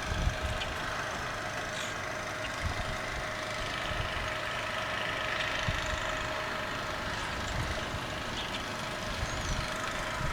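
An engine running steadily with a constant hum, with low thumps of wind on the microphone.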